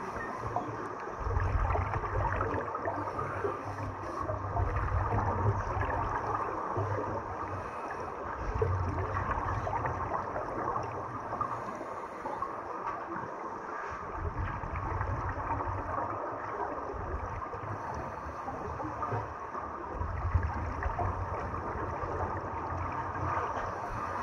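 Underwater sound picked up by a camera in a swimming pool: scuba exhaust bubbles gurgling over a steady hiss, with a low rumbling swell every few seconds.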